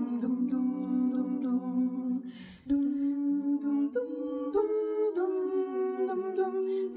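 Small vocal ensemble singing a cappella in close harmony, several voices holding sustained chords that change every second or so, with a short break about two and a half seconds in.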